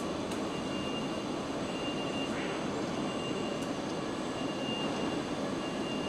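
Steady machinery noise of a car assembly plant, an even rushing hum with a faint high tone that comes and goes.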